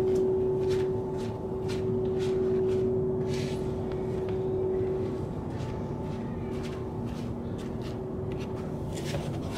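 A steady machine hum with a held mid-pitched tone over a low rumble; the tone fades out about five seconds in, and a few faint clicks sound through it.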